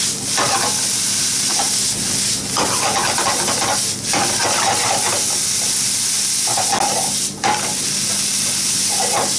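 Chopped turnip greens sizzling in a hot nonstick frying pan as they are stir-fried with mirin and soy sauce. The sizzle breaks off briefly a few times as the pan is tossed, with rustling and scraping of the greens, and they are stirred with wooden chopsticks near the end.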